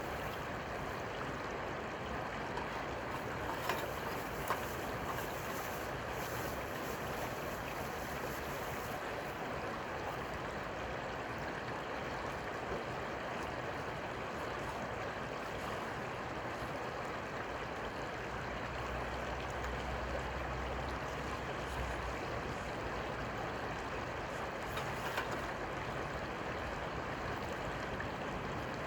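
Steady rushing water noise with a few faint clicks.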